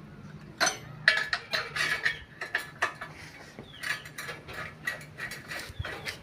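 Ratchet wrench clicking in irregular runs as the clutch cover bolts are tightened on a motorcycle engine, starting about half a second in.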